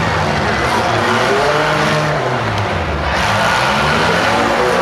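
Engines of several small demolition derby cars running and revving loudly, their pitch rising and falling over one another.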